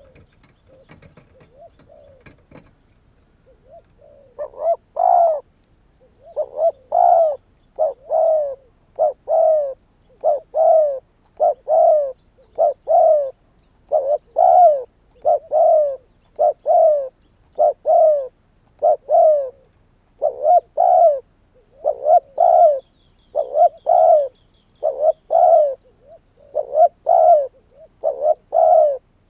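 Spotted dove cooing over and over: a long run of low coos, about one a second, starting about four seconds in.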